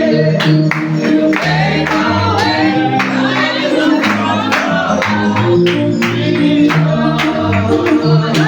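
Gospel praise and worship music: a praise team singing with instrumental backing, a steady bass line and a regular beat.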